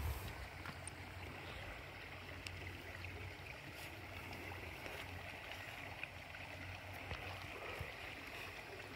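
Faint, steady ambient background noise with a low rumble and a few faint clicks; no distinct source stands out.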